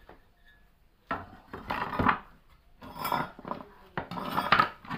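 Metal blower housing clattering and scraping against wooden boards as it is shifted and handled, in several irregular bursts after the first second.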